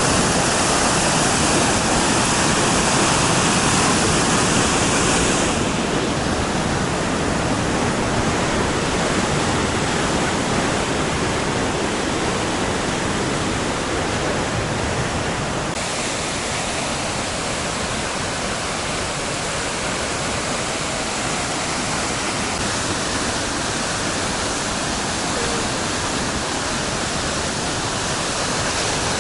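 Steady, loud rushing of water, like floodwater pouring along a channel, with its tone changing abruptly twice, about five and sixteen seconds in.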